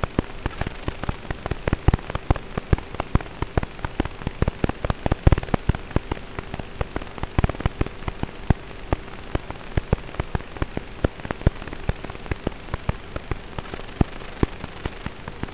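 Onboard audio from an FPV aircraft in flight: dense, irregular crackling and popping over a faint steady hum, heard through a muffled, low-fidelity audio track.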